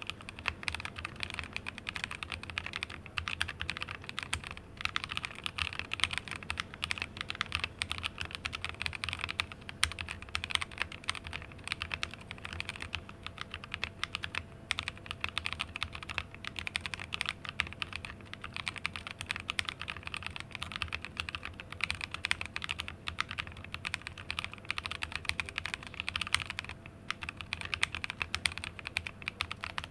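Mechanical keyboard with lubed NovelKey Cream linear switches on a plateless hotswap PCB in an acrylic case, typed on quickly and continuously. The keystrokes and loud bottom-outs make a dense clatter, with a brief pause near the end.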